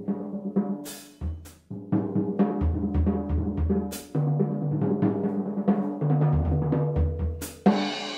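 Rhythmic drum music: fast runs of pitched, tuned-drum notes over a deep, repeating bass-drum pulse, with a few sharp cymbal-like crashes. Near the end a sudden hissing wash sets in.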